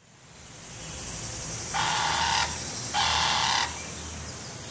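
Rainforest ambience fading in, with two loud buzzing insect-like calls in the middle, each under a second and about a second apart, over a steady low hum.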